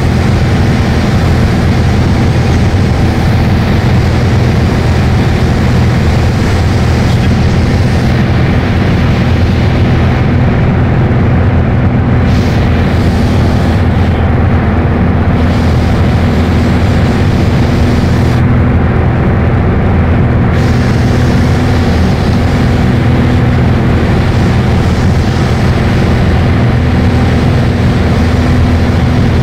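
Piper PA-28 Arrow's piston engine and propeller droning steadily in cruise flight, heard loud inside the cabin: a constant low hum over a thick rushing hiss.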